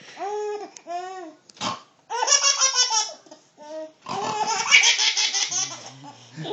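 A baby laughing hard in repeated high-pitched bursts of squeals and giggles, set off by someone pretending to be mom snoring.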